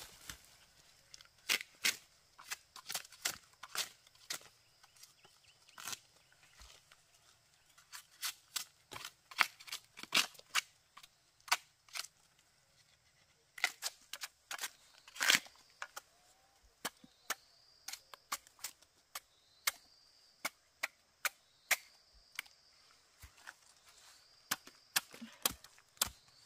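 Irregular sharp snaps and cracks, a couple a second, with a short pause about halfway through. The loudest crack comes a little past the halfway mark.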